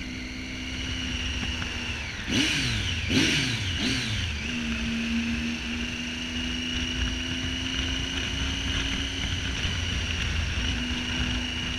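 Triumph Tiger 800 XRx's three-cylinder engine through an aftermarket Arrow exhaust while the bike is ridden. Around two to four seconds in the revs drop twice, as on gear changes, then the engine holds a steady note.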